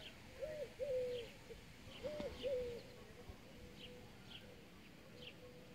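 A dove cooing in two-note phrases, heard twice in the first three seconds. Small birds chirp short high notes throughout.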